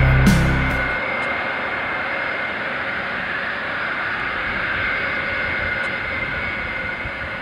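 A Boeing 747-200's Pratt & Whitney JT9D turbofan engines running as the jet rolls along the runway. The noise is steady, with a high engine whine on top.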